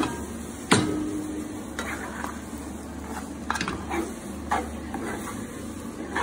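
Spaghetti sizzling in melted butter in a frying pan while a wooden spatula stirs and tosses it, with several sharp knocks of the spatula against the pan, the loudest about a second in.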